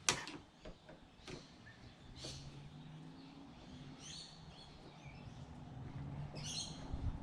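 A sharp click at the start, then a few lighter clicks and knocks of plastic and metal door-handle parts being worked loose by hand. Birds chirp now and then, over a faint steady low hum.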